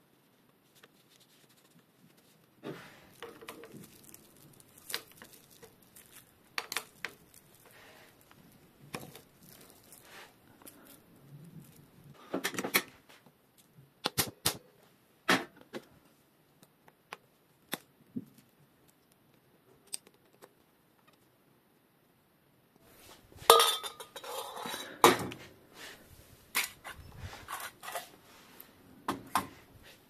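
Metal hand tools and parts clinking and clattering as they are picked up, sorted and put down, with scattered sharp clicks and a louder burst of clatter about three-quarters of the way through.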